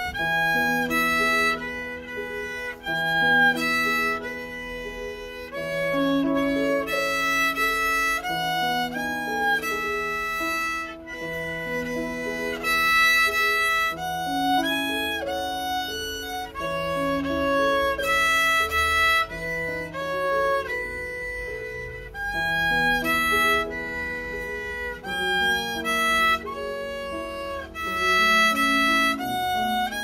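A child's small violin bowed through a simple beginner exam melody, one note after another in a steady, unbroken tune of short and held notes.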